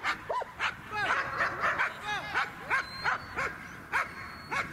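Dog barking in a fast, unbroken run, about three to four barks a second.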